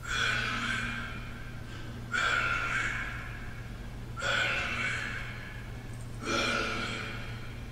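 Opening of a rock song recording: four breathy, exhale-like sounds about two seconds apart, each starting suddenly and fading away, over a low steady hum.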